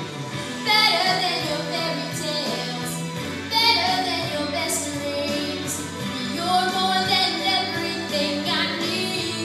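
A female voice singing a song in sung phrases over instrumental accompaniment, with new phrases starting about a second in, near the middle and again later.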